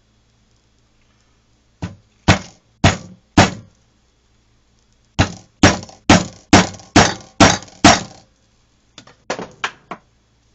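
Hammer blows on a leather hole punch as it is driven into three layers of thick leather: four sharp strikes, a pause, then seven quicker strikes about two a second, and a few lighter taps near the end.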